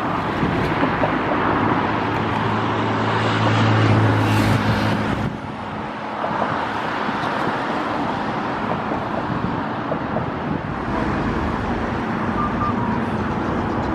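Steady road traffic noise outdoors, with a low engine hum louder from about two to five seconds in that drops away suddenly.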